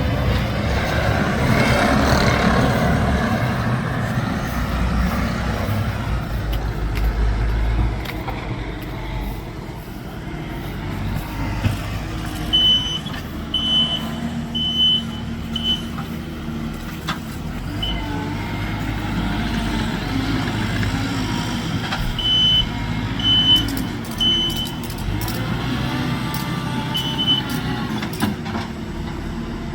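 Skid steer engine running, heavier in the first several seconds, with its backup alarm beeping about once a second in two runs as the machine reverses.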